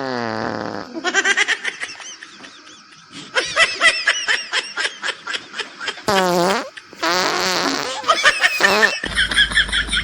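Fart noises: the first slides down in pitch, then runs of quick pulsing ones follow.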